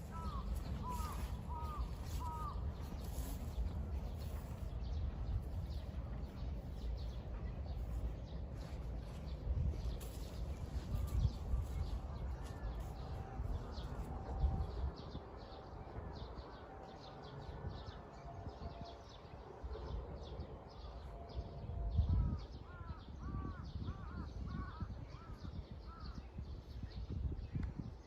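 A bird calling in two runs of short, repeated arching notes, one at the very start and one about 22 seconds in, over a steady low rumble.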